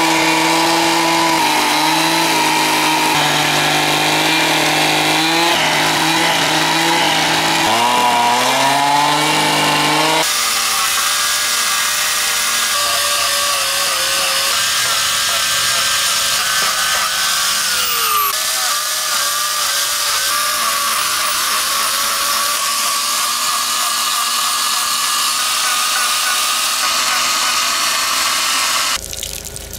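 Carving chainsaw with a narrow carving bar cutting into black locust wood, its engine speed rising and falling as the chain bites. About ten seconds in the sound changes abruptly to a higher, thinner pitch, and it cuts off near the end.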